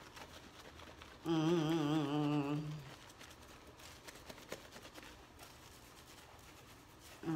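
A person humming one held note with a wavering pitch for about a second and a half, a little over a second in; the rest is a quiet room with a few faint small ticks.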